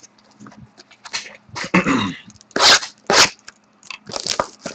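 A trading-card hobby box being opened by hand: tearing and crinkling of its wrapping and cardboard in short irregular bursts, with two sharp rips near the middle and steadier rustling near the end.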